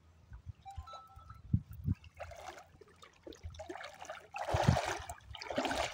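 Shallow river water splashing as a person wades through it, in three bursts of sloshing, the loudest a little past the middle. Two short dull thumps come before the splashing.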